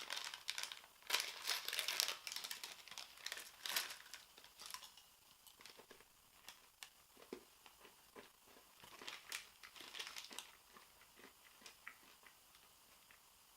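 A packet of M&Ms crinkling and tearing as it is opened, busiest in the first four seconds, with more crinkling around nine to ten seconds and scattered small crunching clicks as the candies are eaten.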